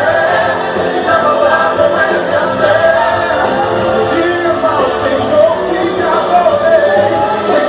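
Brazilian gospel song playing: sung vocals over full band accompaniment.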